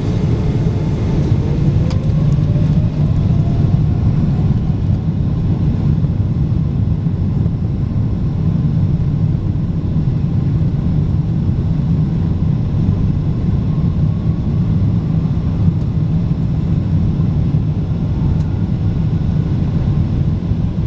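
Boeing 777-200ER cabin noise: a loud, steady rumble from the airliner's engines and airframe, with a faint tone rising in pitch over the first few seconds.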